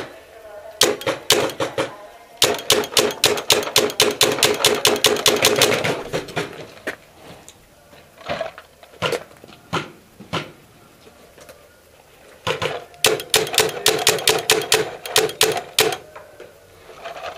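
Paintball gun firing in rapid strings of shots, about seven a second, with a steady hum under the longer strings: a short string about a second in, a long one from about two and a half to six seconds in, a few single shots, then another long string from about twelve and a half to sixteen seconds in.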